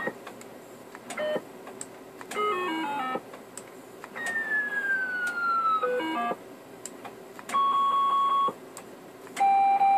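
Uniden Bearcat 980SSB CB radio's speaker playing its selectable roger beep tones one after another as the setting is stepped through. First a short chirp, then a descending run of stepped notes, a long falling whistle and a quick run of notes. Two steady one-second beeps follow, the second lower, with short clicks between the tones.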